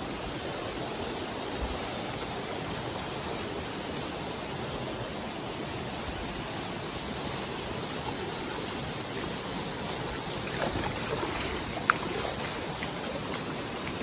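Shallow rocky river flowing over stones, a steady even rush of water. A few light knocks and one sharp click near the end.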